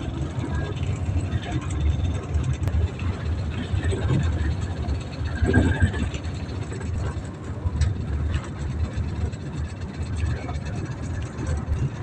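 Steady engine and road noise of a moving road vehicle heard from on board, dominated by a heavy low rumble.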